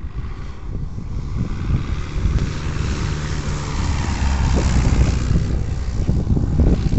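Full-scale Cub light airplane's 65-horsepower propeller engine passing low overhead in a flyby, growing louder to a peak a little past the middle, then easing off near the end.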